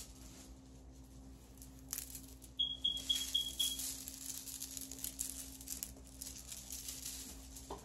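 Rustling and handling noise, as of a phone being turned around while held, over a steady low hum, with a quick run of five short high chirps a little over two and a half seconds in.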